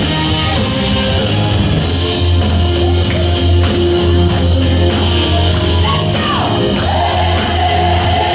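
Up-tempo gospel worship song: a steady beat and heavy bass under a voice singing, with sliding sung lines after about six seconds.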